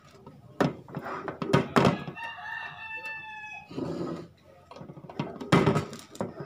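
A stainless steel frying pan and its glass lid clank and knock on a gas burner as the pan is handled and lifted, with unpopped popcorn kernels inside; the loudest knocks come about a second in and near the end. In the background, about two seconds in, a drawn-out call holds one steady pitch for about a second and a half.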